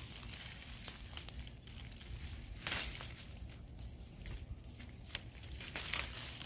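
Smilax vine leaves and stems rustling and crackling as young shoots are picked by hand, with louder crackles about three seconds in and near the end.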